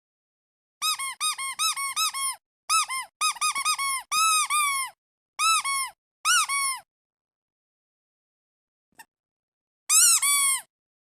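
Squeaky duck toy being squeezed in quick runs of short, high squeaks, each note rising and then falling in pitch. After about three seconds without squeaks, one more short run comes near the end.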